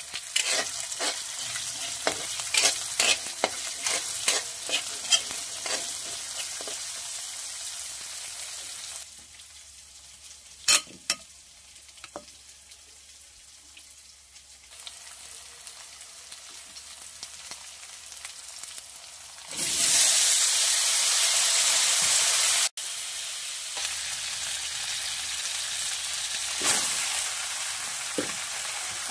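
Food frying in a metal wok over a wood fire: a steady sizzle, with a spatula clicking and scraping against the pan many times in the first several seconds. About two-thirds of the way in the sizzle grows much louder for about three seconds and cuts off suddenly, then a steadier sizzle carries on.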